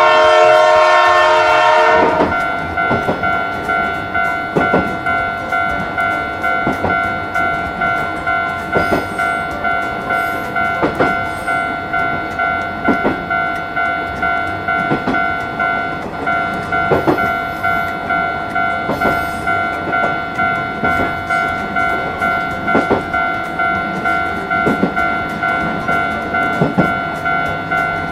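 Train horn sounding for about two seconds. It gives way to a Japanese level-crossing alarm ringing in a steady kan-kan rhythm of about two beats a second, with a clack of train wheels about every two seconds.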